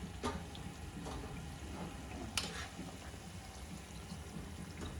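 Fried potato slices draining in a sieve: hot olive oil trickling and sizzling through, with a few light clicks of metal.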